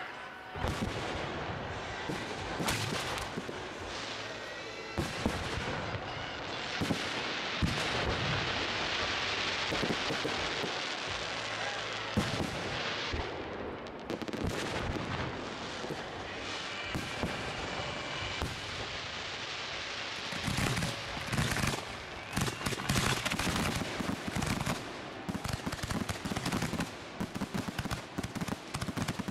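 Professional fireworks display going off: a continuous run of shell launches and bursts, turning into rapid-fire crackling reports near the end.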